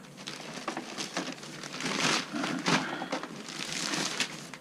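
Plastic packaging bags crinkling and rustling as they are handled, in irregular swells of crackling.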